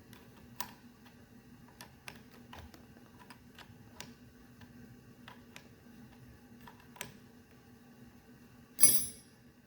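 Light, irregular metallic clicks and taps from the vent window's hardware being handled and worked, with one sharp metal clink that rings briefly near the end.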